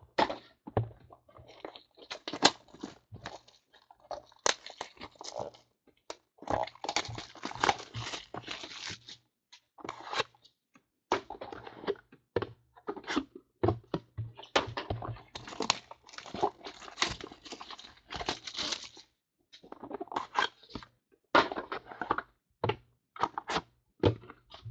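Plastic wrap being torn off and crumpled while trading-card boxes are opened and handled: irregular crinkling and tearing with scattered cardboard knocks.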